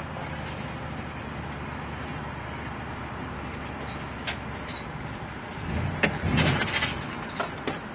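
A van's engine running at a steady low idle. About six seconds in, a louder, rougher rumble comes in, mixed with a few knocks.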